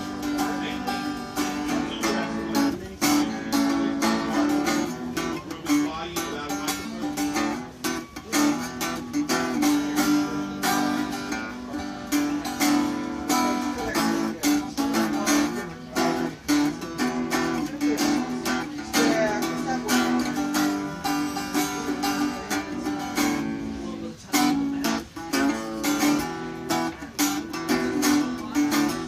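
Guitar playing, a steady run of plucked and strummed notes.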